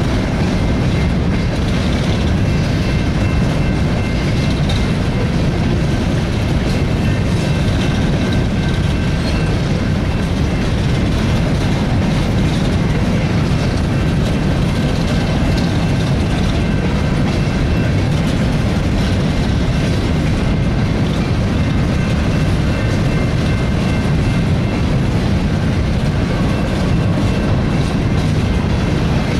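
Empty open-top coal gondolas of a freight train rolling past: a steady, loud rumble of steel wheels on rail with clickety-clack over the rail joints, and a faint steady high-pitched ringing above it.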